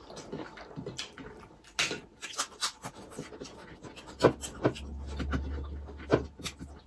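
Eating sounds: lip smacks and chewing as mutton is eaten off the bone by hand, with a string of short smacks and a few louder ones in the second half.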